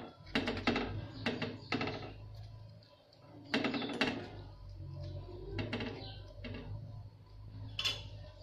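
Metal spoon clinking and scraping against a steel pan as fried carrot malpuas are pressed down into sugar syrup: irregular sharp taps, several in the first two seconds, a brief lull, then scattered taps with one near the end.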